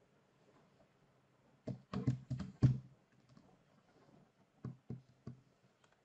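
Clicks at a computer keyboard and mouse: a quick run of about six clicks, then three more spaced clicks about two seconds later.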